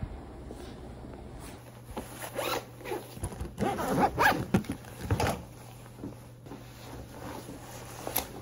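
A zipper being pulled and clothing rustling, loudest from about two to five seconds in, over a low steady room hum.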